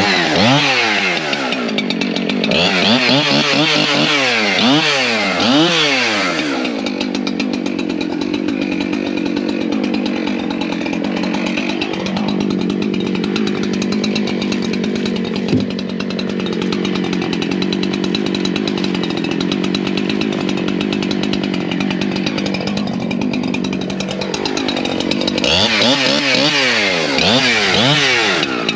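A 70 cc Husqvarna two-stroke chainsaw is revved up and down several times. It is then held at full throttle, cutting through a log for about eighteen seconds with its pitch pulled down and steady under load. Near the end it is revved repeatedly again.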